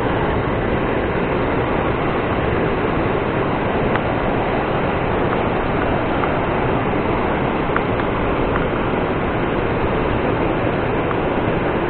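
Steady rushing of water at the dam, an even noise at a constant level, with a few faint ticks.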